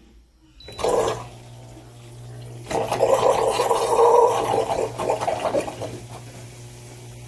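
Electrolux washing machine with water rushing through it over a steady electric hum: a short gush about a second in, then a longer, louder rush lasting about three seconds before it settles back to the hum.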